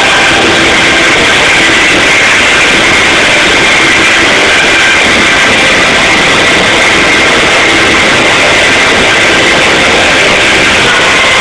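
Live concert music in a large arena, recorded through an overloaded phone microphone, so that it comes through as a dense, distorted wall of sound with a few faint steady tones.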